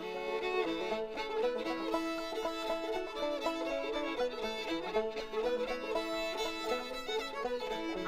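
Instrumental background music with a fiddle playing a melody.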